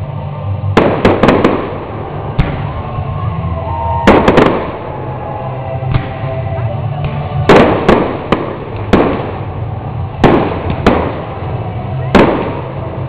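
Fireworks going off: about a dozen sharp bangs at irregular intervals, several coming in quick clusters of three or four, over a steady low background hum.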